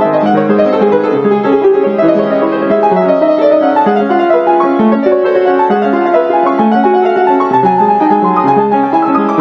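Background instrumental music: a piano playing a steady run of notes.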